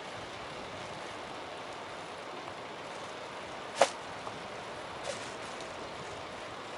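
Steady riding noise picked up by a bicycle-mounted camera, with one sharp clack a little before the middle and a much fainter one about a second later.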